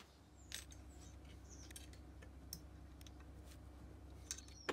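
Faint steady low hum with a few light clicks and taps as hands handle the metal Z-axis assembly and its stepper motor.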